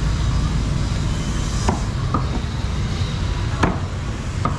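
Outdoor market ambience: a steady low rumble with a handful of sharp knocks or clacks scattered through it.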